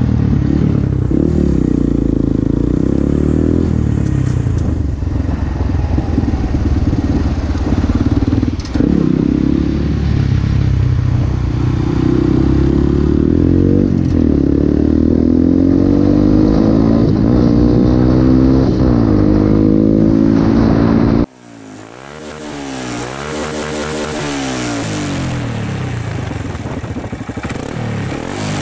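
Motorcycle engine through an aftermarket carbon slip-on exhaust while riding, revs rising and falling as the bike speeds up and slows, with wind rush over it. About three quarters of the way through the sound cuts off abruptly, then the exhaust is heard being revved up and down.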